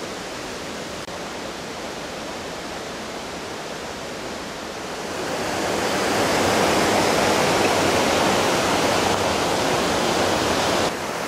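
Mountain stream rushing over boulders: a steady rush of water that grows louder about five seconds in and holds, dropping slightly near the end.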